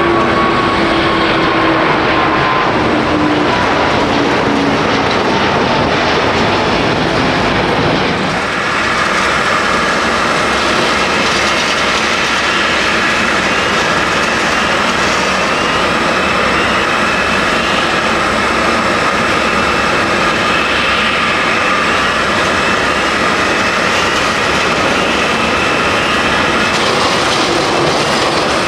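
Jet engines of a departing Airbus A350-1000, Rolls-Royce Trent XWB engines, with a falling whine. About eight seconds in it cuts abruptly to the steady, loud noise of a departing Boeing 777-200ER's twin jet engines.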